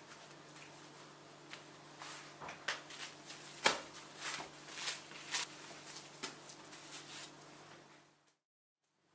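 Clear plastic cling film crinkling and crackling as it is wrapped around a block of pastry dough, a quick run of irregular sharp rustles. Before that come soft sounds of hands pressing the dough, and all sound cuts off suddenly near the end.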